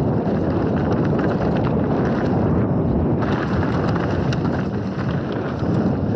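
Mountain bike riding fast down a dirt forest trail: wind buffeting the camera microphone over the tyres rolling on the dirt, with small rattles and knocks from the bike.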